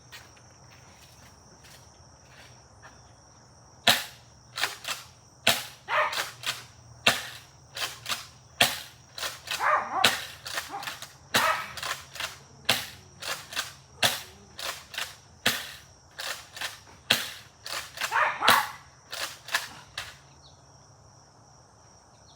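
Pump-action foam-ball blaster (Tactical Strike Liberator) being pumped and fired over and over: a quick run of sharp plastic clacks and pops that starts about four seconds in and stops shortly before the end. Crickets chirr steadily behind it.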